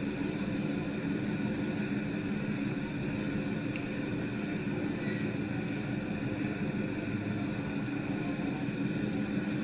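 Steady background hiss and hum of room noise, even throughout with no distinct events.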